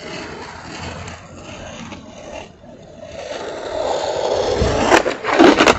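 Skateboard wheels rolling and scraping on pavement, growing louder past the middle, then a few sharp clacks of the board near the end.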